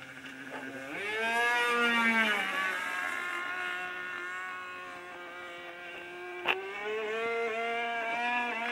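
Super Tigre G-51 two-stroke glow engine of a radio-controlled model plane running at high revs. About a second in it grows louder and its pitch rises, then the pitch falls away and holds lower. It rises again shortly before the end. A single sharp click comes about six and a half seconds in.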